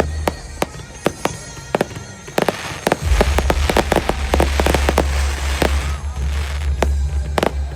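Fireworks going off in quick succession: many sharp bangs and crackles, thickening into dense crackling midway, over a deep low rumble.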